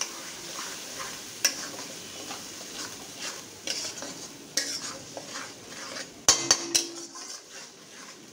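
Onion, ginger and garlic paste sizzling in hot oil in a metal kadai while a metal spatula stirs and scrapes through it, the paste being fried down (bhuna). About six seconds in, the spatula knocks sharply against the kadai a few times and the pan rings briefly.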